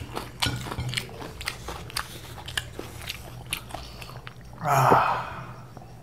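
Close-miked chewing and biting, a string of small sharp mouth clicks and crunches. About five seconds in, a short, louder breathy vocal sound.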